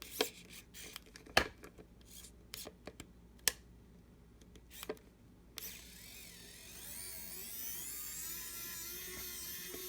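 Hyper Tough 3-volt cordless precision screwdriver's small motor whirring for about four seconds, starting a little past halfway in and rising in pitch before it holds steady. Before it, a few light clicks and taps.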